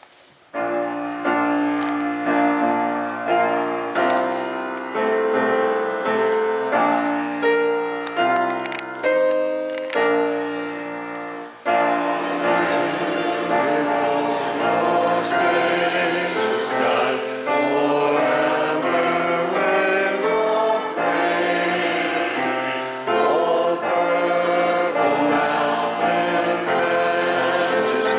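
Church hymn: a piano plays an introduction of sustained chords, then a choir comes in singing with the accompaniment about twelve seconds in.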